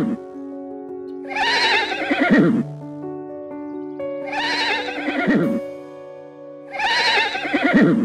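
A horse whinnying three times, each call a quavering neigh of about a second that falls in pitch. Background music with sustained tones plays underneath.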